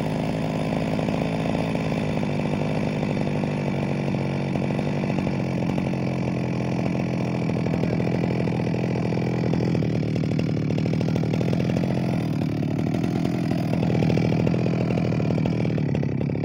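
Stihl MS 361 two-stroke chainsaw engine idling steadily after its carburettor's low-speed (idle) screw has been adjusted. It holds a clean idle without the chain turning, the sign of a correctly set idle.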